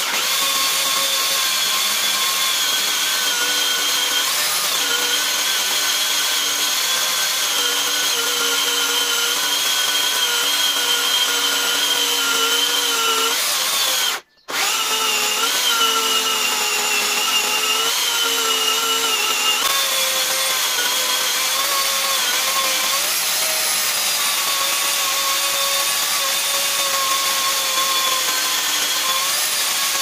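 Dnipro-M DSE-24DS corded electric chainsaw with a 40 cm bar running under load as it rips lengthwise through a walnut log in a frame sawmill: a steady motor whine that breaks off for an instant about halfway through.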